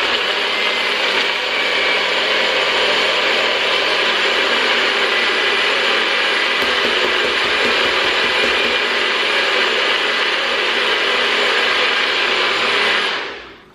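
NutriBullet blender running at full speed, churning ice and chunks of mango and strawberry into a margarita. It makes a loud, steady whir and winds down near the end.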